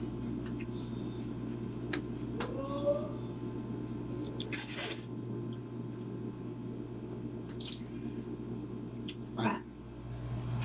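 Balut eaten by hand: faint clicks of the eggshell being peeled and small wet eating sounds, with a brief wet slurp about halfway through, over a steady low hum.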